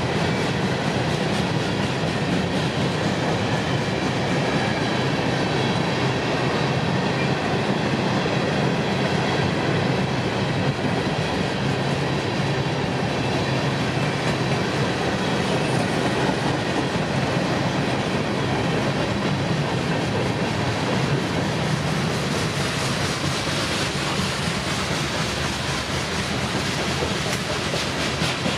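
Freight train's covered hopper cars rolling past: steady rumble and clatter of steel wheels on the rails.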